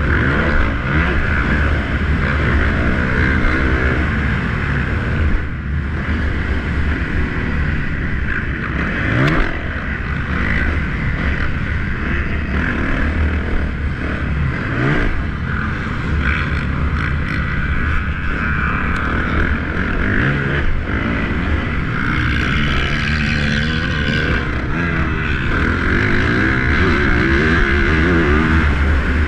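Yamaha YZ450F's single-cylinder four-stroke engine revving hard, its pitch rising and falling through gear changes and throttle work over the ruts and jumps of a motocross track, heard from a helmet-mounted camera. About five seconds in, the engine briefly drops as the throttle is shut off.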